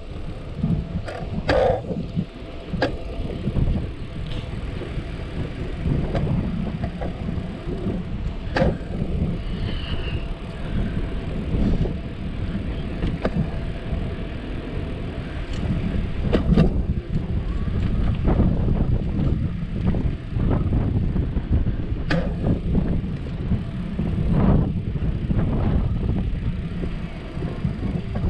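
Wind rumbling on the microphone and the rolling noise of a bicycle ride on a concrete sidewalk, with irregular knocks and rattles scattered throughout.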